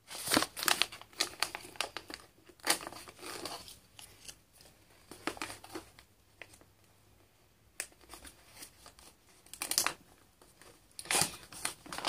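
Stand-up snack pouch being handled and opened: crinkling of the bag in irregular bursts, with a quieter stretch in the middle.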